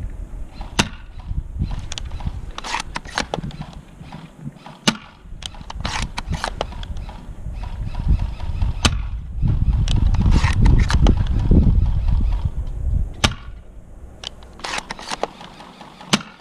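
Scattered airsoft gun shots: single sharp cracks at irregular intervals, a few in quick succession. A loud low rumble on the microphone swells for a few seconds about ten seconds in.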